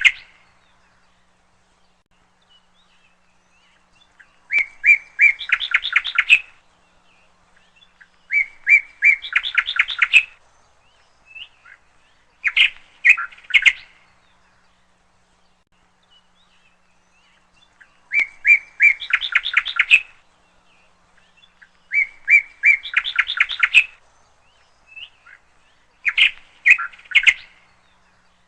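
A songbird singing the same short phrase over and over, six times, about every four seconds: a few separate chirps, then a fast trill lasting about a second.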